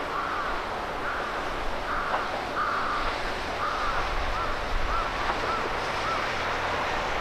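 A bird calling over and over, a run of short arching notes about two a second, over steady outdoor background noise.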